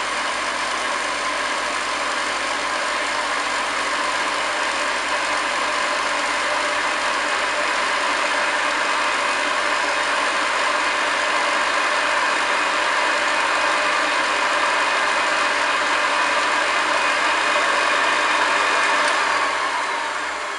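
Hoover Model 725 upright vacuum cleaner running steadily on carpet with its motor whirring. Near the end it is switched off and the motor winds down.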